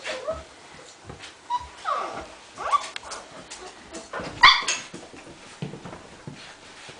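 Irish Wolfhound puppies, about three and a half weeks old, whimpering and yipping as they play. There are several short squeaky cries, some rising in pitch, and one louder yelp about four and a half seconds in.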